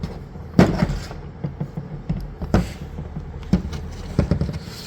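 Steel blade and pivot-pin parts of a hydraulic cable cutter head knocking and clicking as they are handled and fitted together by hand: several separate sharp knocks, the loudest about half a second in.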